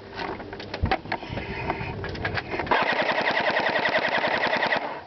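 Airsoft gun firing a sustained full-auto burst of about two seconds, starting a little past halfway, after a scatter of single sharp clicks and pops.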